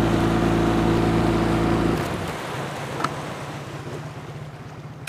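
Boat outboard motor running under way, with water rushing along the hull. About two seconds in, the throttle is pulled back and the motor drops to a quieter low idle as the boat slows. There is a single short knock about a second later.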